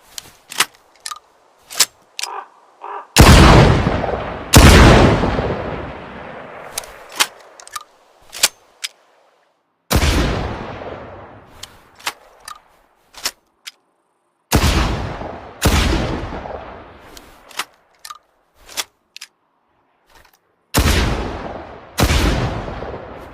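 Sawn-off double-barrelled shotgun firing, mostly in pairs about a second apart, each shot with a long echoing decay. Between volleys come quick sharp clicks and clacks of the break action being opened and reloaded.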